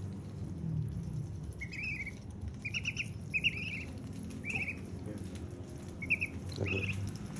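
White ducklings peeping in short bursts of a few quick notes, about six times, while their bills peck at a piece of watermelon with soft pattering clicks.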